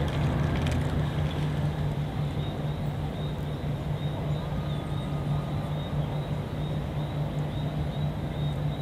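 A steady low engine drone, a machine running continuously, over an even wash of outdoor noise.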